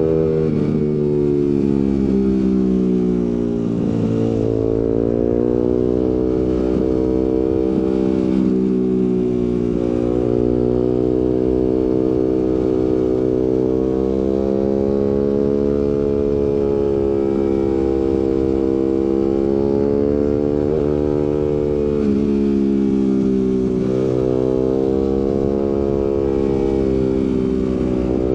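Suzuki GSX-R150's single-cylinder engine running through an aftermarket Prospeed racing exhaust with a Proliner header. Its pitch climbs and drops again several times as the bike accelerates, shifts and eases off.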